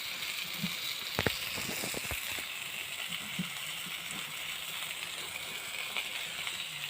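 Sausage frying with a steady sizzle, with a couple of sharp clicks about one and two seconds in.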